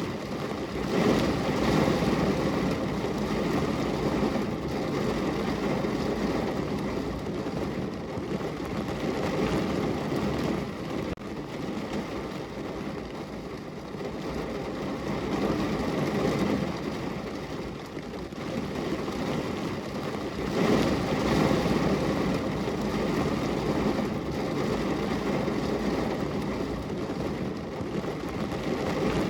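Rain falling on a car window: a steady wash of noise that swells louder a few times.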